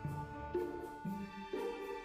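Background music: gentle instrumental piece with sustained chords changing about every half second.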